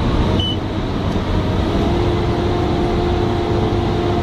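Engine of a heavy snow-clearing machine running steadily, heard from inside its cab, with a low rumble and a steady whine over it. A short high beep sounds about half a second in.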